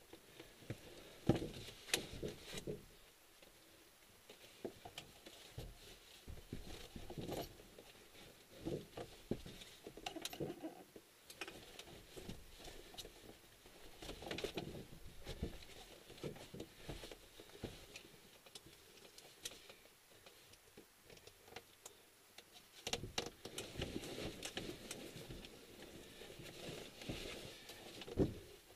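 Irregular rustling, light clicks and taps of a pilot shifting in a glider cockpit and handling his harness straps and buckles, close to the microphone.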